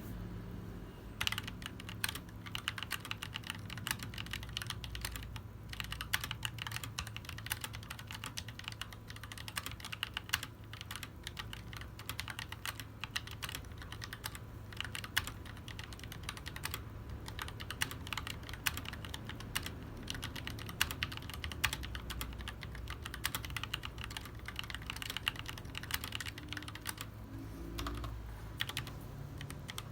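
Typing on a Tecware Phantom L low-profile mechanical keyboard with Outemu Black low-profile switches: a fast, continuous run of keystroke clacks, with short pauses. A steady low hum runs underneath.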